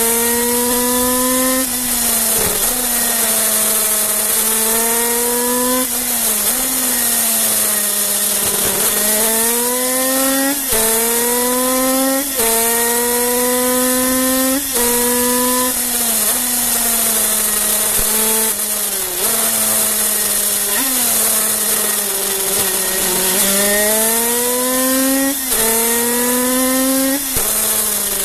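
Kreidler 50cc two-stroke racing engine at high revs under hard acceleration, the pitch climbing through each gear and dropping sharply at each of many quick upshifts, with a few stretches where it falls away as the bike slows for corners. Heard from on the bike, with wind hiss.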